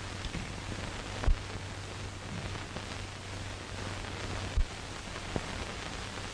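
Hiss and crackle of an old film soundtrack with a steady low hum. Two short low thumps cut through it, one about a second in and one a little past the middle.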